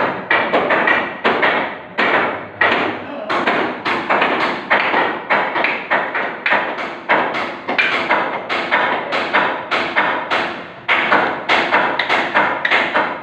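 Steady hammering, about two to three blows a second, each blow ringing with a short echo under the concrete slab.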